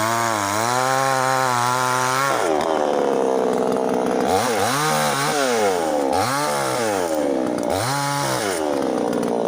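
Foresta FA-62LX two-stroke petrol chainsaw running: held at high revs for about two seconds, then dropping back, and revved up and down three more times in short blips.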